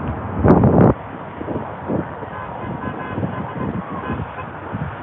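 Vehicle horns honking faintly over traffic noise, starting about two seconds in. About half a second in there is a brief loud rush of noise.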